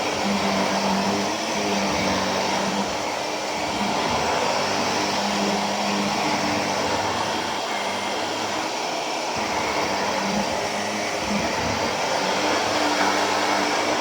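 Shark Navigator Lift-Away Professional NV391 upright vacuum cleaner running steadily: a rush of suction airflow with a motor hum that comes and goes as it is pushed about.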